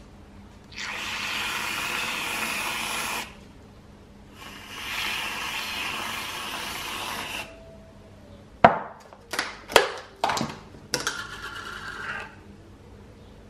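Aerosol can of whipped cream spraying onto milkshakes in two long hisses, one for each glass. These are followed by several short, sharp spurts and clicks, the loudest sounds here.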